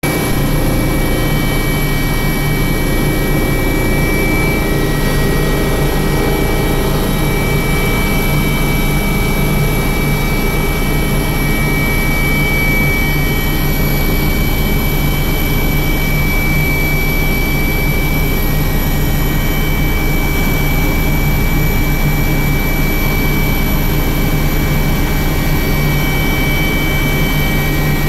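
Helicopter in flight heard from inside the cockpit: a steady engine and rotor drone with a high, constant whine over it.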